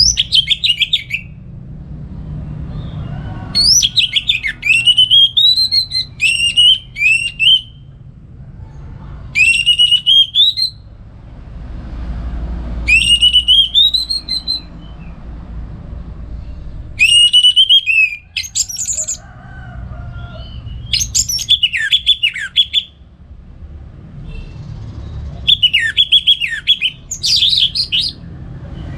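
Orange-headed thrush singing in short phrases of clear whistled notes that rise and fall, mixed with quick high notes. A new phrase comes every few seconds over a steady low rumble.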